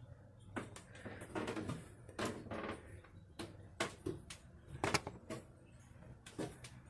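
Irregular clicks and knocks, about a dozen, with brief rustling about a second and two seconds in.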